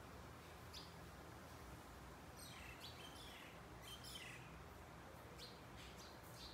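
Near silence with faint, short, high-pitched bird chirps, several falling in pitch, coming in small clusters.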